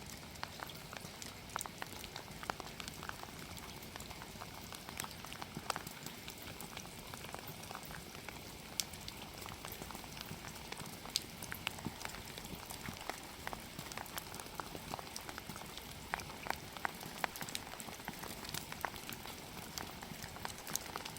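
Wood fire crackling: a steady hiss dotted with irregular sharp pops and snaps.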